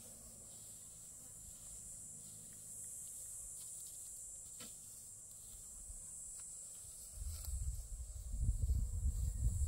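Steady high-pitched insect chirring over a quiet rural field, with a few faint light scrapes. About seven seconds in, an irregular low rumble of wind buffeting the microphone starts and becomes the loudest sound.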